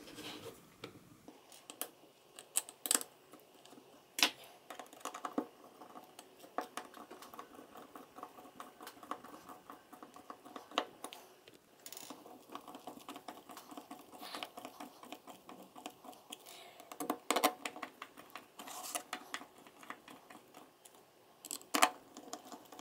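Small screws being driven by hand with a screwdriver into a black plastic handheld case: long runs of fine, scratchy clicking as the screws turn, with several sharper clicks and knocks as the case and tools are handled.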